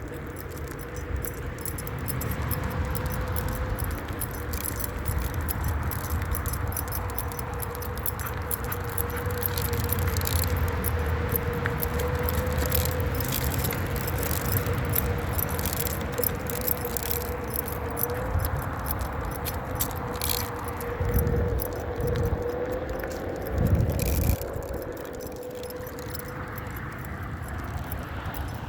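Onewheel electric board rolling along, its hub motor giving a steady whine that wavers a little in pitch as speed changes, over a low rumble of the tyre on the ground. Light metallic jingling and rattling clicks run throughout, with a couple of louder low rumbles late on.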